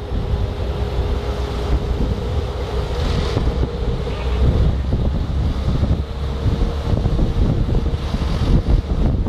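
Wind rumbling on the microphone on the open deck of a moving river boat, over the steady hum of the boat's engine, which shifts slightly in pitch about halfway through.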